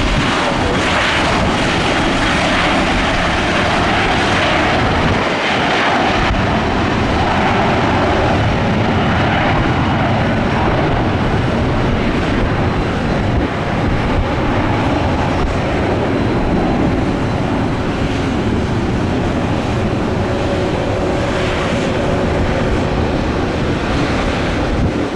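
Jet airliner engines running loud and steady, a dense rumble with a faint whine above it.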